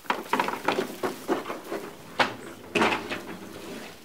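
Lawnmower with a homemade plywood wheel being rolled over grass with its engine not running: the deck, handle and wheels rattle and clunk irregularly, with two louder knocks about two and three seconds in.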